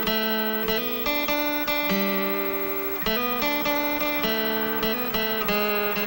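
Acoustic guitar music: single notes picked one after another in a steady run, with no singing.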